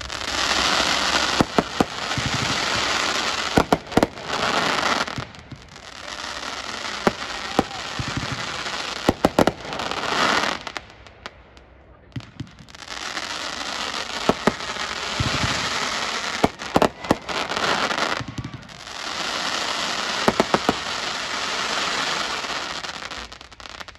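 A Dominator "Crossette Crush" 500-gram fireworks cake firing: sharp bangs of the crossette breaks over a dense hissing crackle. It comes in volleys with short lulls about five, eleven and eighteen seconds in, and stops near the end.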